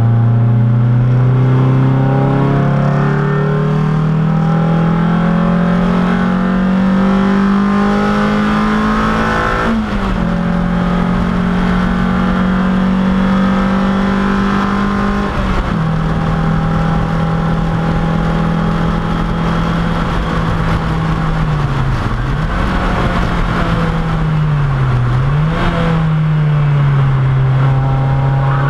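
Race car engine heard from inside the stripped cockpit, pulling hard with its note climbing steadily. The pitch drops sharply at gear changes about ten and fifteen seconds in, then holds steady with two brief dips in pitch near the end.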